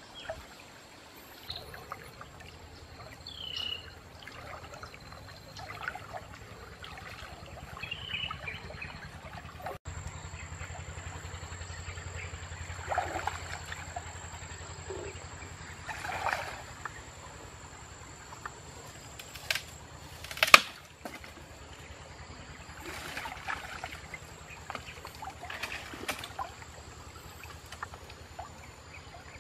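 Water sloshing and splashing in irregular bursts as a person wades waist-deep through a stream. A single sharp knock about two-thirds of the way through is the loudest sound.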